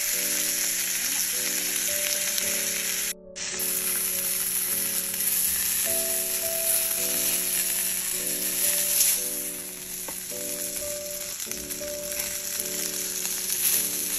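Steak sizzling as it sears in a smoking-hot frying pan, a steady dense spitting hiss. The sound cuts out briefly about three seconds in.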